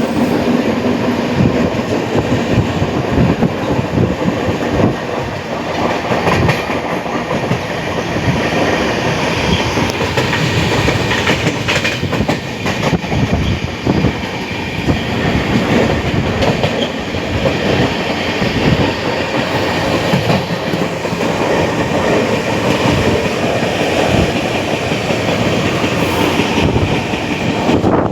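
Moving passenger train running on its line: a steady loud rumble of wheels on rails with frequent irregular clattering knocks over the rail joints.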